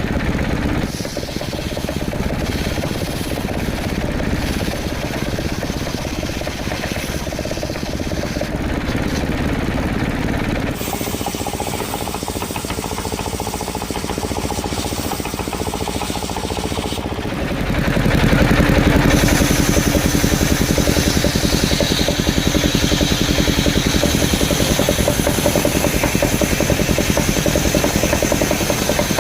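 Engine of a powered wood saw running steadily, getting clearly louder about 17 seconds in and holding there.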